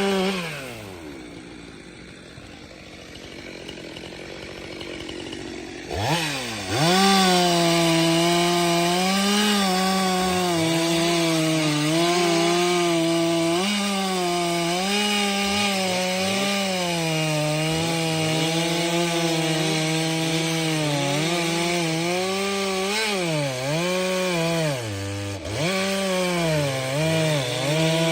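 Stihl MS 462 C-M two-stroke chainsaw dropping from full throttle to a low idle for about five seconds. About six seconds in it revs back up and cuts firewood at full throttle, the engine pitch dipping and recovering again and again as the chain bites into the wood, with several deeper dips near the end.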